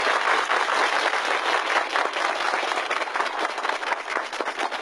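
Crowd applauding, many hands clapping together, thinning a little near the end.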